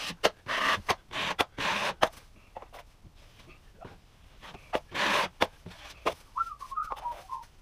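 Wide drywall taping knife spreading topping compound on the wall and scraping against the mud pan: a few short scraping strokes with sharp clicks of the blade. A brief wavering whistle follows near the end.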